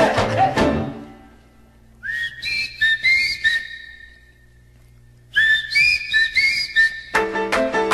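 Two short whistled phrases with light clicking percussion, separated by a brief pause, after a salsa song fades out; full salsa band music comes in near the end.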